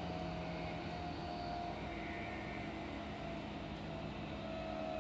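Meitetsu 5000 series electric train running, heard from inside the passenger car: a steady rumble with faint motor tones that shift slightly in pitch.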